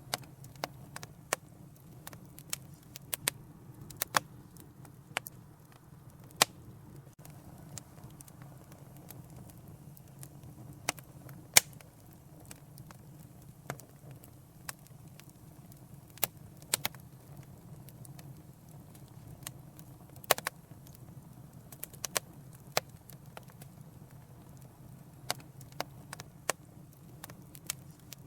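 Wood fire crackling, with irregular sharp pops and snaps, a few much louder than the rest, over a steady low rumble of the flames.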